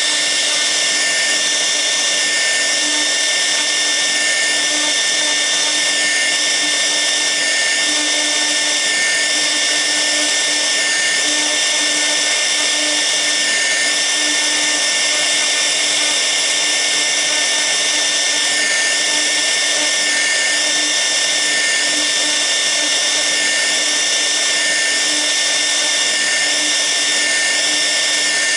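6 kW air-cooled spindle of a 1325 CNC router running at speed with a steady high-pitched whine while a V-bit carves the workpiece, with a faint rise and fall every second or two as the cut moves along the toolpath.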